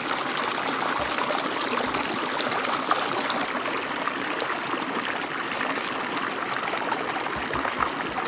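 Small mountain brook running and splashing over rocks: a steady rushing of water.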